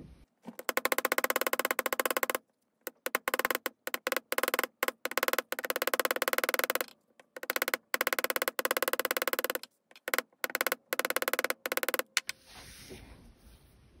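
Chasing hammer striking 16-gauge copper wire on a steel bench block, flattening and texturing it. Very rapid metallic taps come in several runs separated by short pauses, stopping about 12 seconds in.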